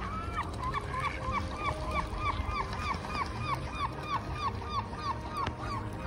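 A waterbird giving a rapid, even series of short calls, about four a second, from a mixed flock of swans and ducks.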